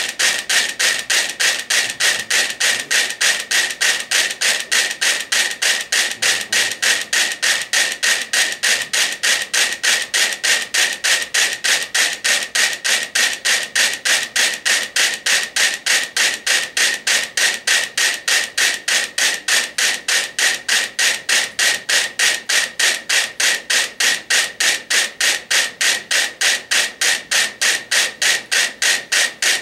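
About a hundred wind-up mechanical metronomes ticking together in unison, a steady train of sharp, crisp clicks at about two to three a second. They have fallen into step through the swaying board they share.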